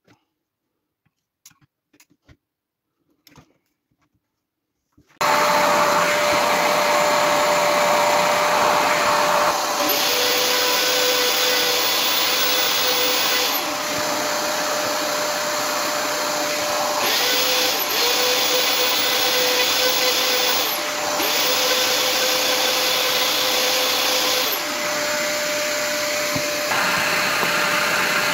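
A shop vacuum hooked to a router's dust port switches on about five seconds in and runs steadily with a constant hum. On top of it the electric plunge router runs in three spells of about three seconds each, adding a brighter whine.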